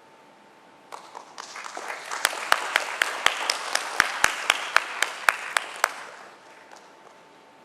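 Audience applauding: clapping begins about a second in, swells, and dies away near the end. One clapper close by stands out with sharp, evenly spaced claps at about four a second.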